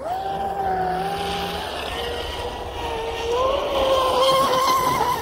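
Pro Boat Blackjack 42 RC catamaran's brushless electric motor and drive running at high speed, a steady high-pitched whine over water hiss. The pitch rises and holds about three seconds in. The hull is lifting and starting to tail-walk at this speed.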